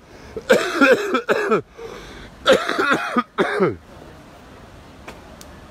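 A man's voice in two bursts of wordless vocal sounds, each swooping up and down in pitch, about a second apart.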